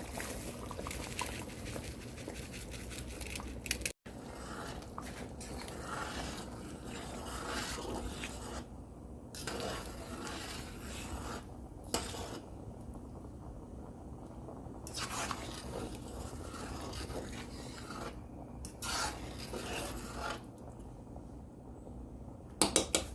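Pot cooking sounds: a spoon scraping and rubbing in a pot of rice and liquid while it is stirred, with irregular knocks of utensil on pot and a few sharper clacks near the end.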